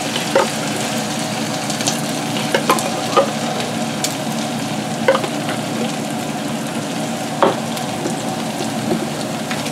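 Browned ground beef sizzling steadily in a frying pan as condensed cream of chicken soup is scraped into it, with a few sharp clicks of the utensil against the can and pan.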